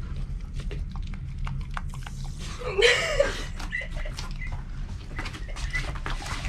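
Large dogs lapping carbonated water from a stainless steel bowl: a run of quick wet clicks and splashes. A short, louder vocal sound cuts in about three seconds in.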